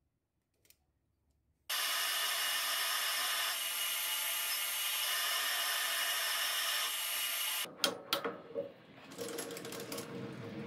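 Metal lathe running with its chuck spinning, a loud, even machine noise that starts abruptly about a second and a half in and cuts off near eight seconds. A few sharp clicks and knocks follow, over a lower sound that fades away.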